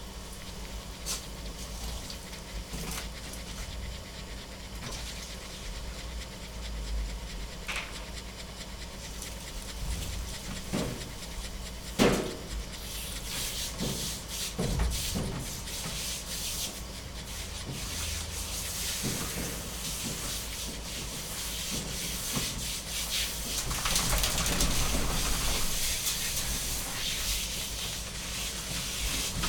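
A dog panting, with soft rubbing sounds over a steady hiss. There is a sharp knock about twelve seconds in.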